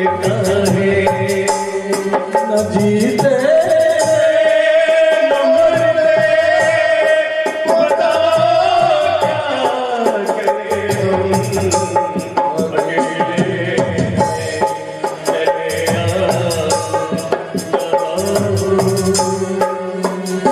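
Old Hindi film song playing: a melody over light percussion, with one long held note in the middle that slides down as it ends.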